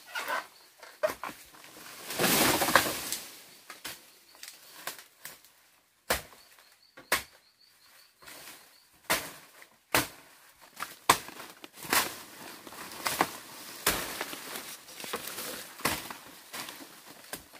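Irregular sharp knocks and clatter, now sparse, now several a second, with a longer rustling noise about two seconds in.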